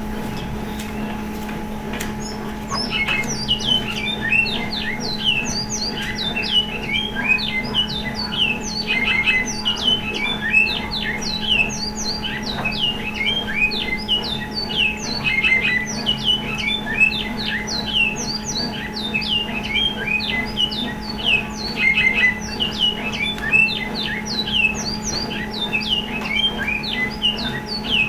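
A bird calling rapidly in a long run of short, sharp notes that slide downward, starting about three seconds in. A steady low hum runs underneath.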